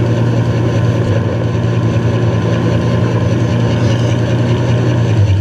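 Motorboat engine running steadily with a low drone while the boat tows a wakesurfer, over the rushing and spraying water of the wake.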